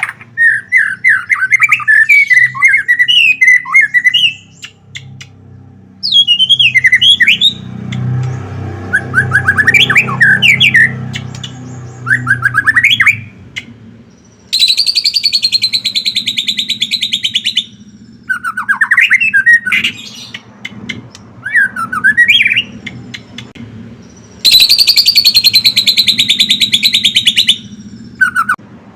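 White-rumped shama (murai batu) singing loudly in its full 'gacor' song: quick, varied whistled and chattering phrases, broken by two long harsh rattling trills of about three seconds each, one in the middle and one near the end. A low steady hum runs underneath.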